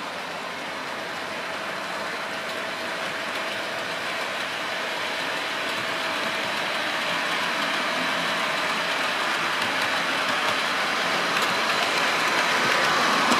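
OO gauge model train, a diesel locomotive hauling coaches along the track, running steadily and growing louder as it approaches.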